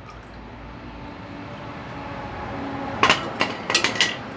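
Metal clanks and knocks from a small Honda tiller being tilted by hand to let surplus engine oil run out, with a quick cluster of sharp knocks about three seconds in over a faint, slowly rising hiss.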